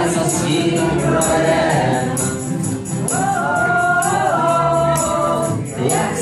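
A folk band playing live: voices singing a tune over acoustic instruments, with a regular jingling percussion beat about twice a second.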